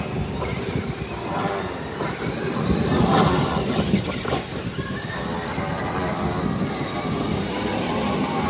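Castle Creations 2535 brushless motor in a large-scale electric RC monster truck running on 12S LiPo, its whine rising and falling in pitch as the throttle is worked, over drivetrain and tyre noise on asphalt.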